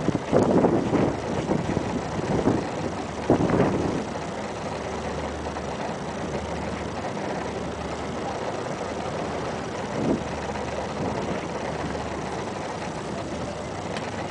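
Sandstorm wind rushing, gusting hard several times in the first few seconds and then settling to a steady roar, with a faint low hum beneath it.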